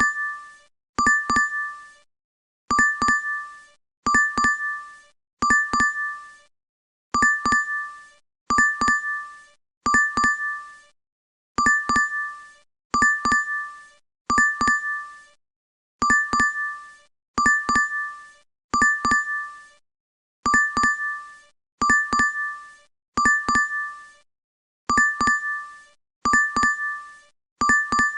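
DoorDash app notification chime: a quick bright ding of two or three strokes, repeated over and over with short gaps between.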